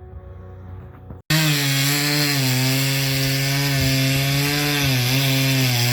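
Battery-powered limb saw cutting through box elder wood. It comes in suddenly about a second in and runs loud and steady, its motor pitch dipping slightly as it bogs under load.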